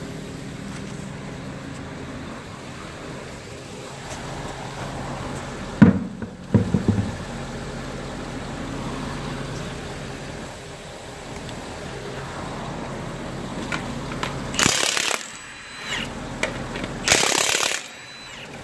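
Milwaukee M18 1/2-inch cordless impact wrench hammering in two short bursts near the end, breaking lug nuts loose on a truck wheel. A truck engine idles steadily underneath, and a sharp metal knock with a brief clatter comes about six seconds in.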